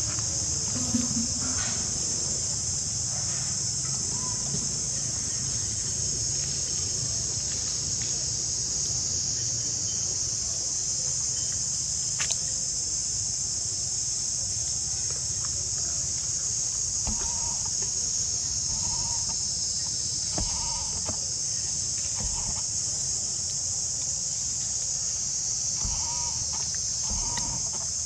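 Steady high-pitched drone of insects, cicadas or crickets, in forest. Short, faint animal calls repeat over it in the second half.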